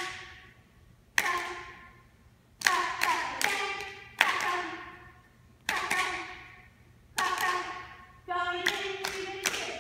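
A run of sharp shouted calls ringing out in a gymnasium's echo, each dying away over about a second, at uneven spacing. Near the end comes a longer held call.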